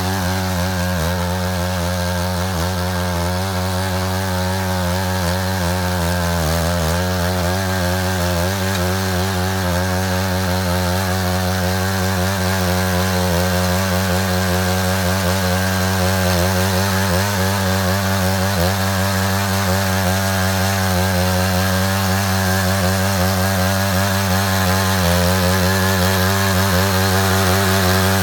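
Engine of a Matsuda walk-behind power tiller running steadily under load while cutting a ditch, its pitch wavering slightly.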